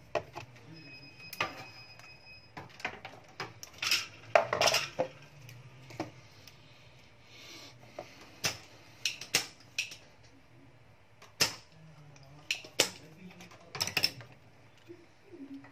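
Irregular clicks, taps and knocks of a circuit board, solder wire and a soldering iron being handled and set against a hard workbench.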